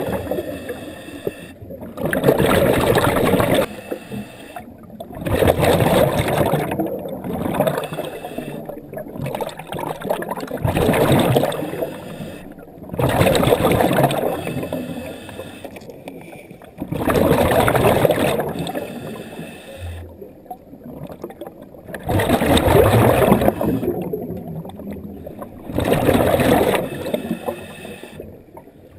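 A diver's breathing heard underwater through the breathing apparatus: exhaled air bubbling out of the exhaust valve in loud rushes roughly every four seconds, with quieter hissing between breaths.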